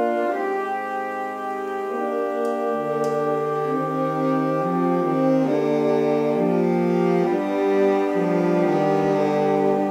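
Saxophone ensemble of alto, tenor and baritone saxophones playing slow, sustained chords that change every second or so; a low bass part enters about three seconds in.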